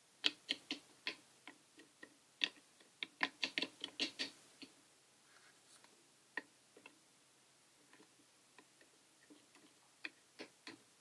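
Metal spoon clicking and tapping against a plastic cup and the metal spinner head of a cotton candy machine while a sugar mixture is spooned in. There is a quick run of sharp clicks over the first few seconds, then only a few scattered taps.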